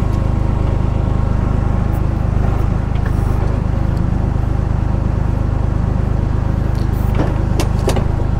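Tractor engine running steadily, driving the hydraulics of an FTG FB42 timber crane as it swings a log. A few sharp knocks come near the end as the log is lowered onto the trailer load.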